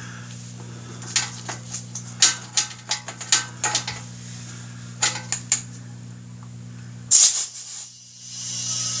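Short metallic clicks and clinks, then about eight seconds in a steady hiss of compressed air starts as a tubeless motorcycle tire is being inflated. A low steady hum runs underneath.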